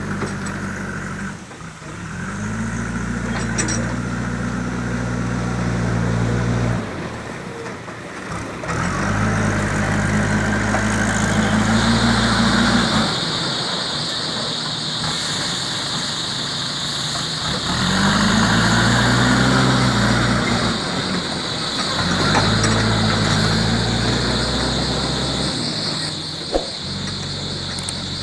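Backhoe loader's diesel engine running and revving up repeatedly in spells of a few seconds as it works the digging hydraulics, dropping back between spells. A steady high whine joins about halfway through.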